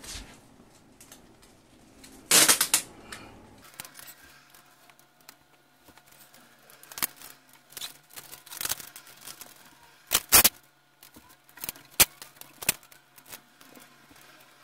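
Packaging tape being pulled off its roll and handled to seal the gaps around a window air conditioner: one loud rasping strip about two and a half seconds in, then scattered sharp clicks and snaps.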